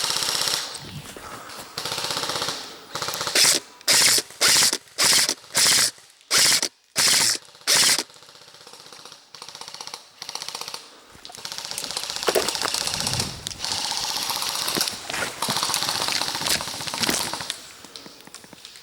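Airsoft guns firing on full auto: about eight short, sharp bursts in quick succession, then longer stretches of rapid rattling fire in the second half.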